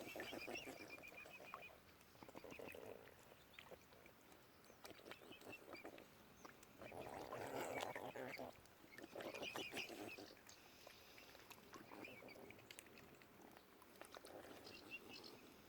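Swans and other birds calling softly: several low calls of about a second each, with runs of rapid, short high notes in between.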